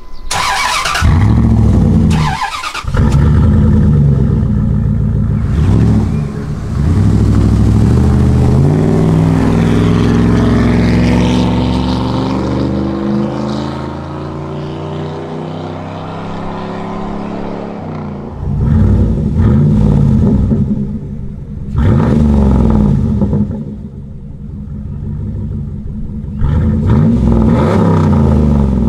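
Dodge Ram 1500's 5.9-litre Magnum V8 running loud through a Magnaflow mid pipe with the rear muffler deleted. It is revved in short bursts, then pulls away with its pitch climbing as it accelerates, then is blipped again several times near the end.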